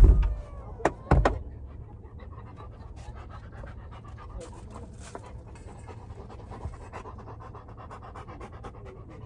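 Large white Great Pyrenees-type dog panting steadily inside a car, hot under a thick, ungroomed coat and frightened. Sharp thumps at the very start and twice more about a second in.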